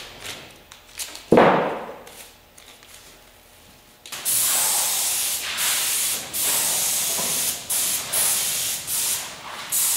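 A loud knock about a second in. Then, from about four seconds, a compressed-air spray gun hisses in bursts, with brief breaks between passes.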